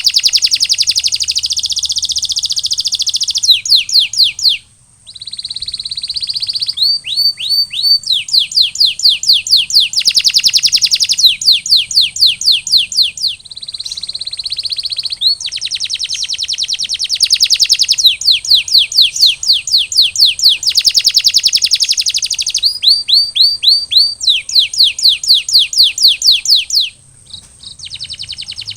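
Male canary singing a long song of rapid trills (rolls) alternating with runs of quick downward-sweeping whistled notes. The song breaks off briefly about five seconds in and again near the end.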